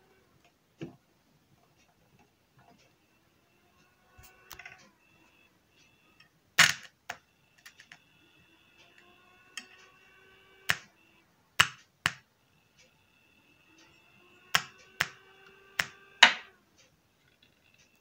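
Sharp clicks and snaps, about a dozen at uneven intervals, as a capacitor's leads are touched to the output of a home-built, microcontroller-controlled switch-mode power supply. Between them a faint whine from the supply comes and goes, rising a little in pitch each time.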